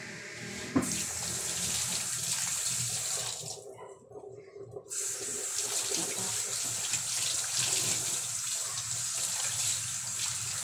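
Water from a kitchen tap running into a sink as something is washed under it. It starts with a click a little under a second in, stops for about a second and a half near the middle, then runs again.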